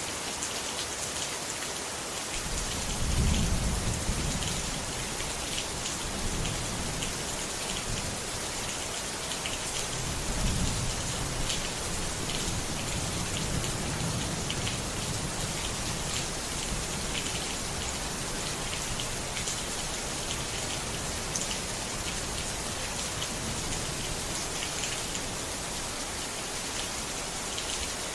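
Steady rain pattering, with low rolls of thunder swelling about two to three seconds in and again about ten seconds in, each fading out over several seconds.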